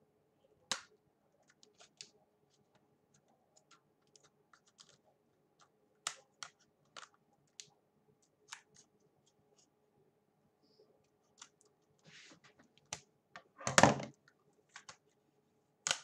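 Scissors working at the plastic latch of a Blu-ray case: scattered sharp clicks and small plastic snaps, then a louder crack near the end as the latch breaks off.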